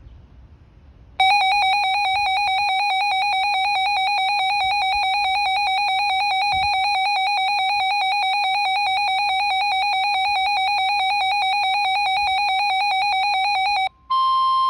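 Weather radio alert alarm: a loud, rapidly warbling electronic tone that starts about a second in and runs for about twelve seconds, signalling an incoming warning. Near the end it breaks off briefly and a steady 1050 Hz NOAA Weather Radio warning alarm tone begins.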